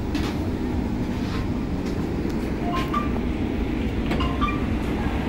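Steady low rumble of a Vande Bharat Express coach on the move, heard from inside the carriage, with a few faint clicks.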